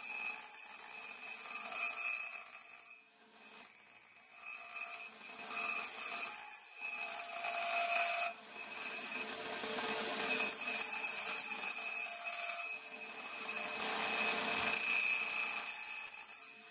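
Homemade lathe cutting a thick steel plate with a carbide tool: a steady, high-pitched whine from the cut, dropping out briefly several times.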